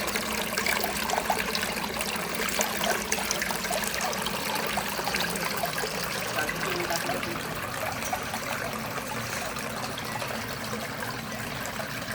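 Water trickling and bubbling steadily, with many small pops and clicks.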